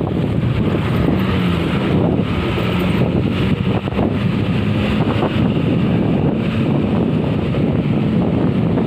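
Road vehicle engine running under heavy wind noise on the microphone, a steady rumble with a faint hum and no horn.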